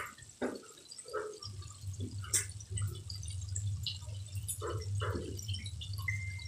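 Chicken pieces deep-frying in a wide aluminium pan of hot oil: the oil bubbles and crackles with scattered, irregular pops, over a steady low hum.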